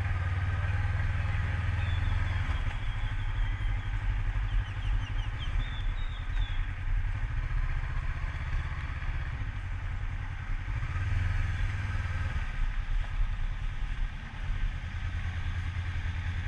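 Honda CB500X's parallel-twin engine running as the motorcycle is ridden, a steady low pulsing note that shifts in pitch a few times.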